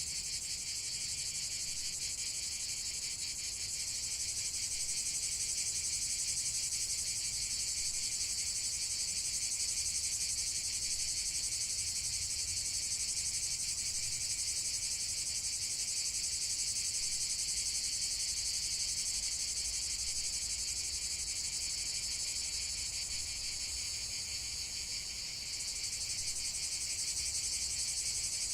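A dense, steady chorus of crickets chirping: a high, rapidly pulsing trill that never lets up, dipping slightly about 25 seconds in.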